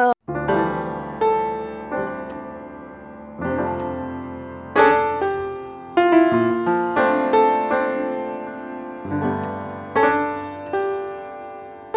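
Piano music: chords and melody notes struck one after another, each fading before the next.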